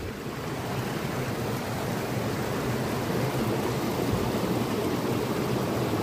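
A waterfall rushing: a steady roar of falling water that grows a little louder over the first two seconds and then holds.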